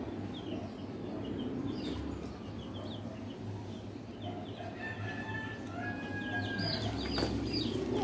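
Young chicks peeping: many short, quickly falling chirps, with a steady low hum underneath.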